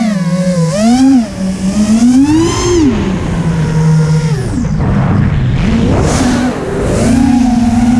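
FPV quadcopter's brushless motors and propellers whining over wind rush, the pitch rising and falling with the throttle, heard through the onboard GoPro's microphone. A little past halfway the pitch falls away into a rougher rush for about a second, then the whine climbs back.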